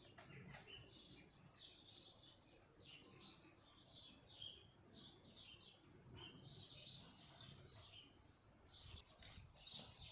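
Faint birdsong: small birds chirping and twittering in quick, repeated short high notes, over a low background murmur, with a few short clicks near the end.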